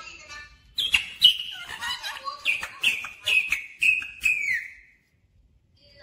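Indian ringneck parakeet calling: a run of short, high notes with sharp clicks in between, the last note gliding down about four and a half seconds in.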